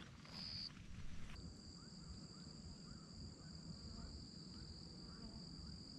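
Faint high-pitched trilling of insects, steady and unbroken, starting about a second and a half in after a brief first burst. Faint short rising chirps repeat behind it.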